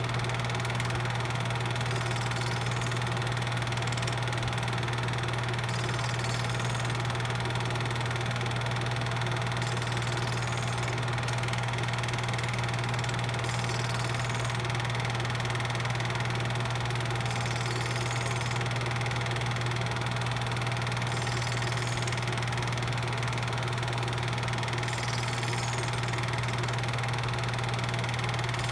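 Steady low mechanical hum and whir of a film projector running, with an even hiss and no other sound. The 8mm footage itself is silent.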